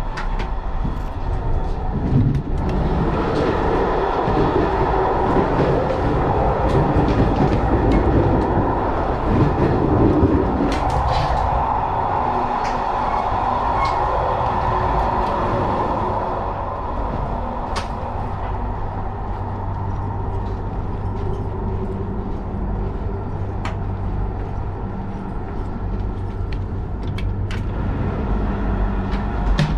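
A Belgian Railways Class 96 (AM96) electric multiple unit running along the track. There is a steady rumble of wheels on rail with a low hum and occasional sharp clicks, louder during the first half.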